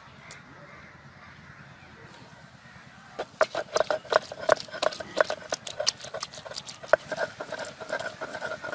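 Stone roller rocked and knocked against a flat grinding stone (sil-batta), crushing chopped tomatoes into paste: rapid, irregular clacks with a ringing note that start about three seconds in.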